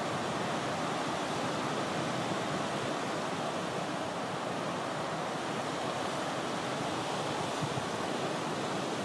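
Steady rushing noise from Mount Etna's erupting summit crater as it throws up lava fountains, mixed with wind on the microphone.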